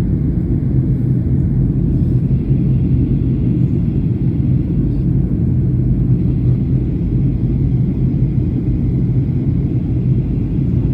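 Airliner cabin noise: a steady, loud, low drone of the jet's engines and air rushing past the fuselage, with a low hum running under it.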